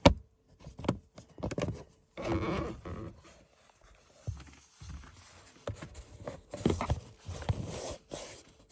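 Irregular knocks, clicks and scraping of hard plastic dashboard trim being handled and tapped by hand.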